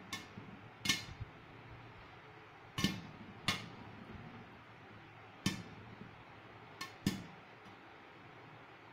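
Popcorn kernels popping in a pan covered by a glass lid: about eight sharp, irregular pops with a clink of kernels against the lid, over a faint steady hiss. The pops are sparse because popping has only just begun on a low flame.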